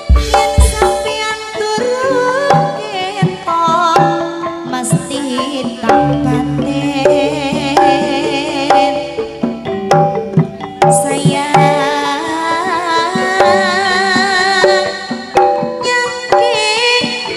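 Live campursari ensemble playing: hand-drum (kendang) patterns under a melody of held and wavering notes.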